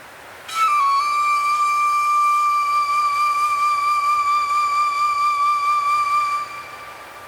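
Ambient music: one long high note that dips slightly in pitch as it starts, then is held with a slight waver for about six seconds before dropping away into a soft wind-like hiss.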